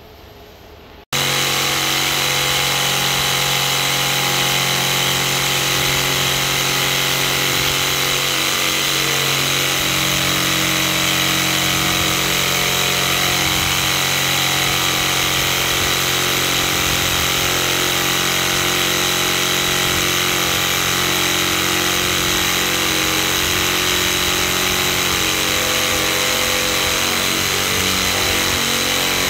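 Corded electric jigsaw running steadily as it cuts a wooden board, starting abruptly about a second in.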